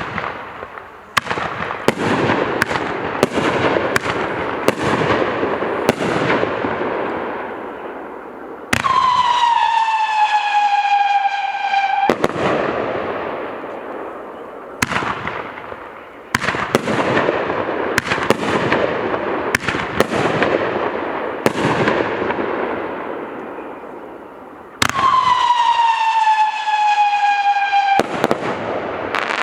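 An 18-shot consumer firework cake firing shot after shot, a sharp bang roughly every second followed by crackling. Twice, each time for about three seconds, a loud whistling tone sounds and falls slightly in pitch.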